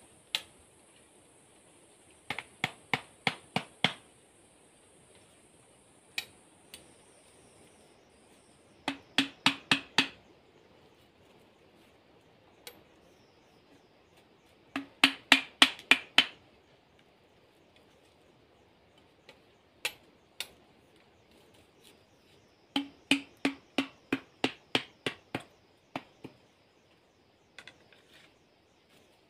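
Bamboo stakes being hammered into the ground: four bursts of sharp knocks, five to eight strikes at about four a second, with a few single knocks between. Some strikes carry a low hollow ring from the bamboo.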